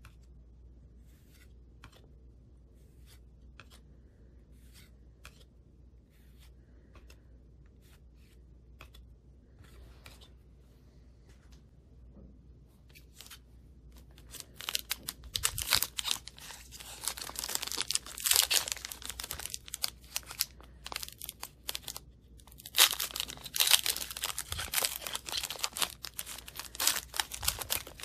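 Faint soft clicks as trading cards are flipped one by one, then from about halfway a foil hockey card pack being torn open, its wrapper crinkling loudly in bursts.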